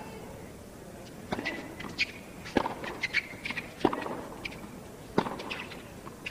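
Tennis ball struck by rackets and bouncing on a hard court: a series of sharp knocks, the strongest spaced about a second and a quarter apart.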